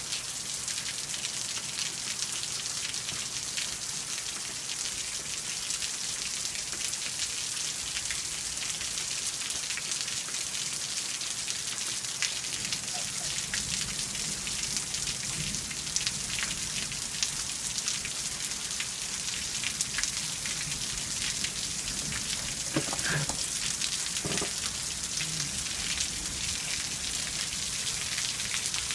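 Steady spring rain falling, a continuous hiss full of fine drop ticks. About halfway through, a faint low rumble joins it.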